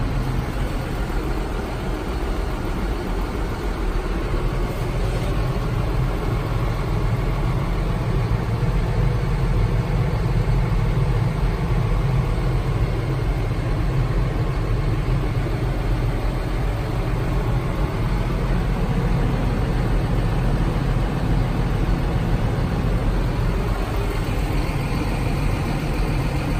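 John Deere 6150R tractor's six-cylinder diesel engine running steadily, heard from inside the cab.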